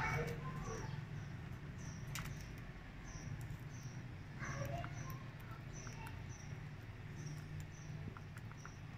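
Budgerigars pecking and cracking seed from a hand, faint small clicks scattered throughout, over a faint high chirp that repeats about twice a second and a steady low hum.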